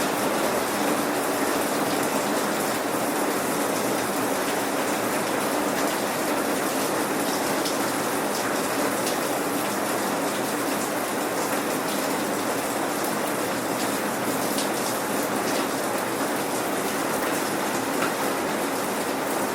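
Steady, gentle rain without thunder, raindrops pattering on surfaces.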